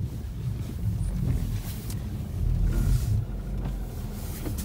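Lada Vesta driving over a snow-covered track: a steady low rumble of engine and tyres, with a faint brief hiss now and then.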